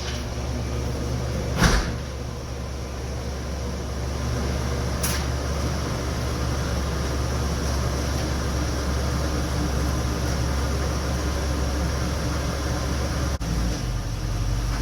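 1977 Chevrolet C10 pickup's engine running steadily at low speed. A sharp knock comes about two seconds in and a lighter click a few seconds later.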